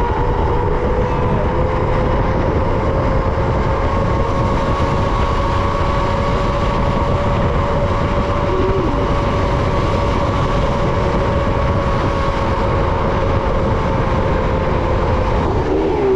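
Zip-line trolley pulleys rolling along the steel cable: a steady whine over wind rushing across the microphone. Near the end the whine falls sharply in pitch as the trolley slows on reaching the landing platform.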